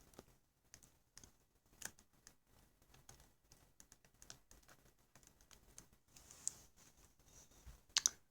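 Faint, scattered small clicks and taps of plastic and metal as a replacement laptop screen panel and its display cable are handled and the cable connector is fitted, with a sharper click near the end.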